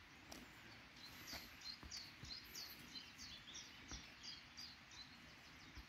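A small songbird singing a long run of short, falling, high notes, about three a second, over faint outdoor background hiss.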